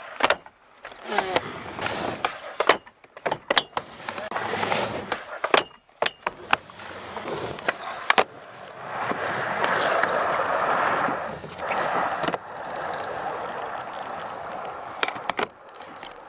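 Skateboarding on a ramp: wheels rolling, boards popping, flipping and landing with sharp clacks and smacks, in several short cuts. About nine to eleven seconds in, a longer, louder stretch of wheel rumble.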